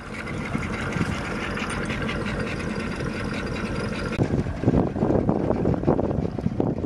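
Boat's outboard motor idling steadily, with choppy, irregular noise coming in from about four seconds in.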